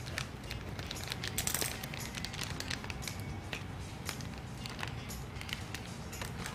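Plastic lentil packet crinkling and rustling as fingers work its zip-lock seal, a run of small clicks and crackles that is busiest about a second and a half in.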